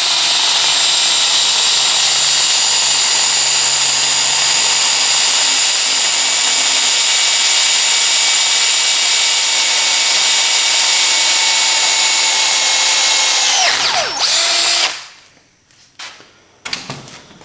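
Hand drill motor running at steady speed as a freshly sharpened 5/16-inch twist bit cuts through 3/16-inch steel. About 14 s in, the whine drops in pitch, picks up briefly, then stops, followed by a few faint clicks.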